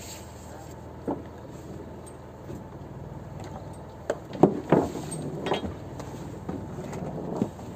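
Steady low hum of a fishing boat's engine running, with a few sharp knocks and clinks of gear aboard. The loudest cluster of knocks comes about four to five seconds in.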